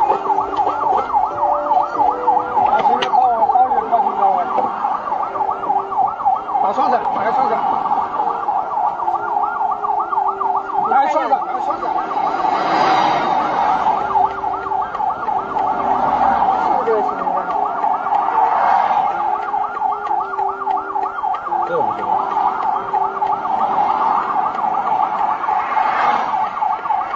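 Police car siren sounding continuously in a fast, high warble from a stopped police vehicle.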